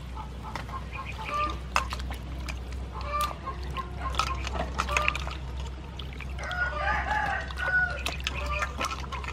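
Water splashing and sloshing as hands wash vegetables in a steel bowl. Chickens cluck in the background with many short calls, and one longer call comes about two-thirds of the way through.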